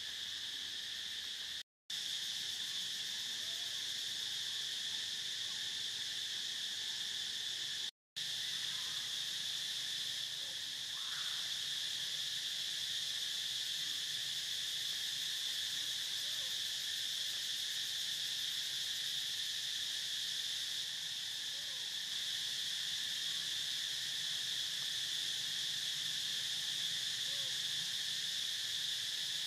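Steady, high-pitched chorus of insects, unbroken except for two short dropouts near the start.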